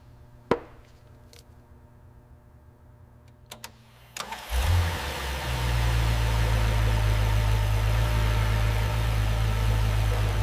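A few light clicks, then a car engine starts about four seconds in and settles into a steady, low idle.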